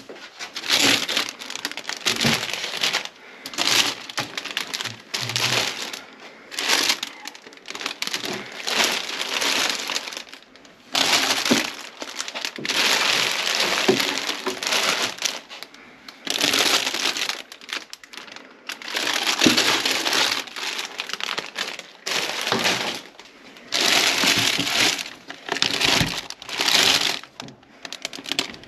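Cellophane bouquet wrappers crinkling and rustling in repeated bursts as flower bouquets are handled and pulled out of a plastic wheelie bin.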